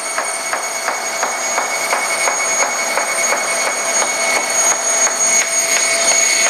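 Industrial horizontal bandsaw cutting through a bathtub with the feed table running at 1.5 inches per second. It makes a steady, high, whining machine noise with a regular tick about three times a second.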